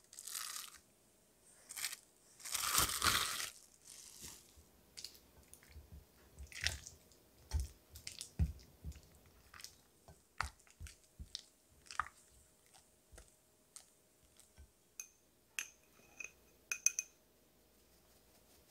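Silicone spatula mashing and stirring softened cream cheese in a glass bowl: soft squishing and scraping with many small clicks and taps against the glass. There is a louder rustle about three seconds in and a few short squeaks near the end.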